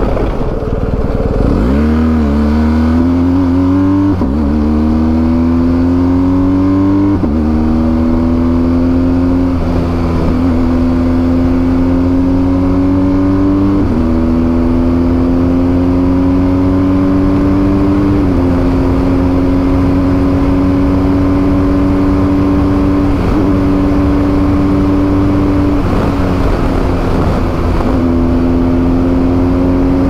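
BMW GS Adventure motorcycle engine accelerating hard up through the gears. Its note climbs in each gear and drops at each upshift, about five shifts in the first eighteen seconds. After that it holds a near-steady note at cruising speed.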